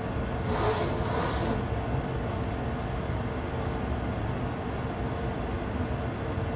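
Steady low cockpit rumble of a Boeing 737-800 full flight simulator on final approach, with a brief hiss about half a second in.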